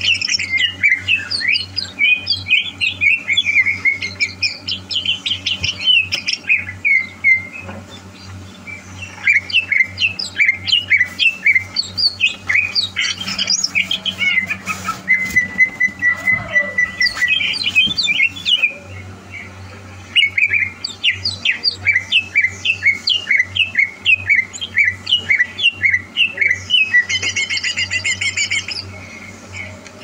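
Greater green leafbird (cucak hijau) singing: bursts of rapid, varied chirps and whistled notes, broken by short pauses, with one long level whistle about halfway through. A faint steady low hum runs underneath.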